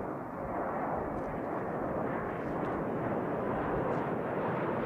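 B-1B Lancer bomber flying overhead, its four General Electric F101 turbofan engines making a steady jet noise that grows slowly louder.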